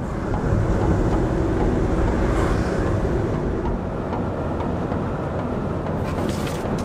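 Steady low road rumble inside the cabin of a moving camper van travelling at motorway speed, with a brief louder hiss near the end.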